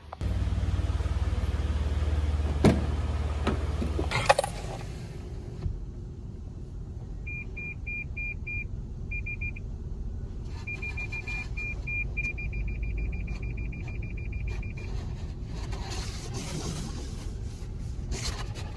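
Heard from inside a car: a steady low hum with a couple of knocks, then a car's electronic warning beeps in short groups that quicken into a rapid run. Near the end comes the hiss of car-wash water spray striking the car.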